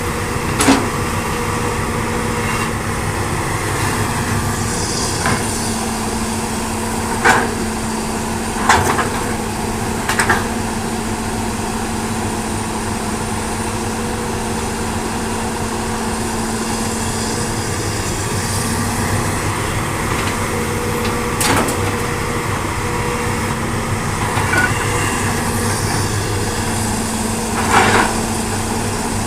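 Hitachi hydraulic excavator's diesel engine running steadily under work, with a few sharp metallic clanks and knocks scattered through as it digs and loads.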